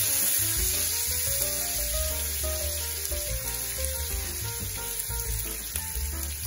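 Sliced onions sizzling steadily as they fry in hot oil in a pan, under background music with a melody and bass line.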